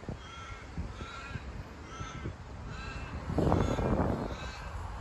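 A crow-type bird cawing over and over, about one caw a second. Wind rumbles on the microphone throughout and is loudest a little past halfway.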